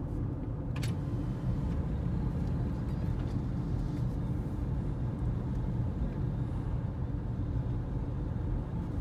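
Steady low rumble of a moving car, engine and tyres on the road, heard from inside the cabin, with a brief click about a second in.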